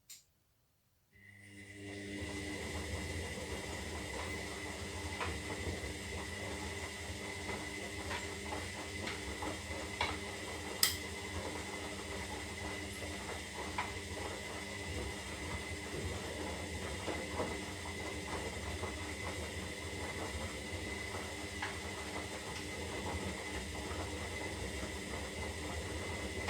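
Zanussi Lindo 300 washing machine running through its synthetic wash cycle: a steady motor hum with a high whine over a hiss, starting about a second in, with scattered small ticks and a couple of sharper clicks about halfway.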